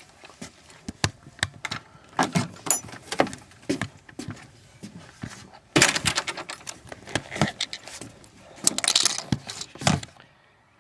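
Irregular clicks, knocks and rattles of things being handled, with louder scraping rustles about six and nine seconds in.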